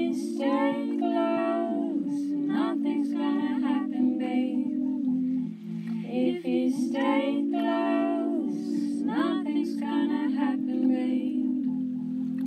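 A woman singing a slow melody over a steady sustained accompaniment of held low notes, in a raw acoustic solo song.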